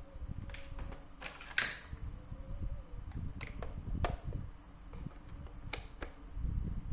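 Several sharp clicks and taps, with one louder scraping burst about a second and a half in, over a low rumble: handling noise from objects being moved about on a work surface.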